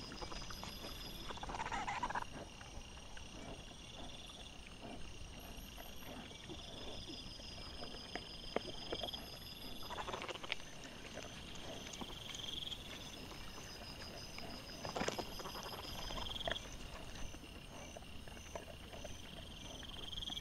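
Night-time woodland ambience sped up fourfold: insects chirring in regular repeating pulses, with a few short, louder noises from wild boar and their piglets foraging close to the trail camera.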